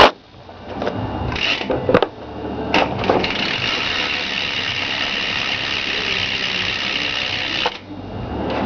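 BMX rear cassette hub with an 8-tooth driver freewheeling as the back wheel spins: a steady, fast buzz of clicking, with a couple of sharp knocks early on, cutting off suddenly near the end.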